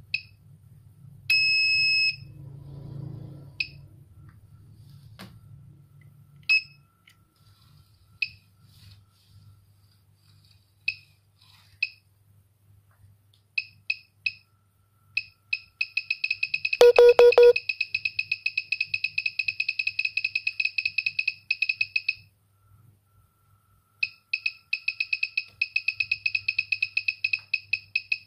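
Electronic buzzer of a digital product counter beeping once for each count as an object passes its photoelectric sensor: single short beeps at first, then fast runs of several beeps a second. A longer beep sounds near the start, and a louder, lower buzz about half a second long comes a little past halfway. A low steady hum lies underneath.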